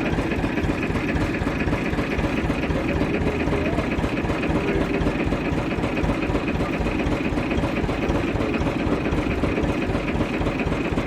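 Tractor's diesel engine running steadily as the tractor reverses.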